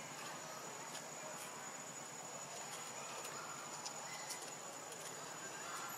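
Faint forest ambience: a steady high-pitched insect buzz with scattered soft ticks.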